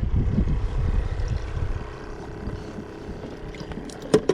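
A steady low engine drone, fading away under wind noise on the microphone, with a single sharp click about four seconds in.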